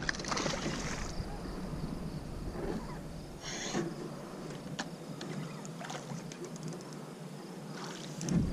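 Hooked fish splashing as it leaps out of the water at the surface, with another short splash about three and a half seconds in. Scattered light clicks follow in the second half.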